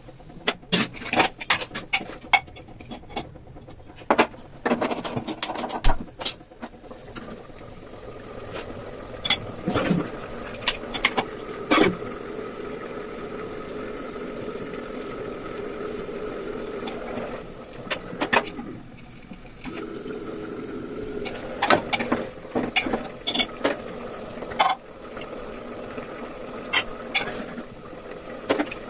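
Metal clanks and scrapes of an aluminium pressure cooker's lid being taken off and of a steel ladle knocking against the pot while stirring. A steady hum runs beneath from a few seconds in.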